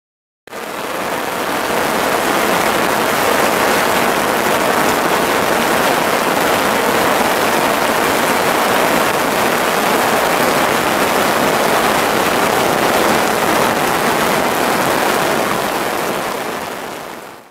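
Heavy rain shower falling steadily, an even hiss with no thunder heard. It fades in about half a second in and fades out near the end.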